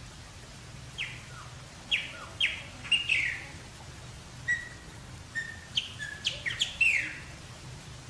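Chopi blackbird (pássaro-preto) singing: a phrase of clear whistles that sweep sharply downward, starting about a second in, with a few short level whistles midway and a quick cluster of sweeping notes near the end.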